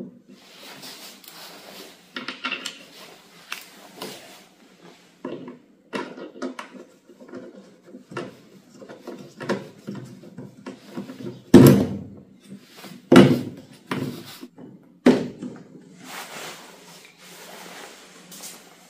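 Clatter and knocking of the lawn mower's handle parts being handled and taken apart, with three loud sharp knocks in the second half, about one and a half to two seconds apart.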